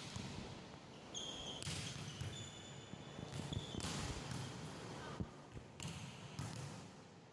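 Volleyballs being struck and forearm-passed in a gym, a sharp slap roughly every second, echoing in the hall, with a few short high squeaks of sneakers on the court floor.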